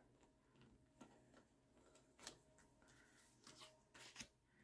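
Near silence, with a few faint soft clicks and rustles as a plastic zip cash envelope is handled and fitted onto the metal rings of a binder.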